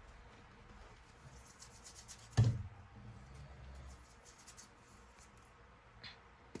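Reformed chalk being crushed and rubbed by hand: fine crackling and scratching, with one loud crunch about two and a half seconds in.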